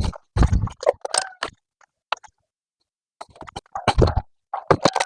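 Irregular clicks, knocks and scrapes of hand work on parts and tools, in two busy clusters with a short pause about halfway through.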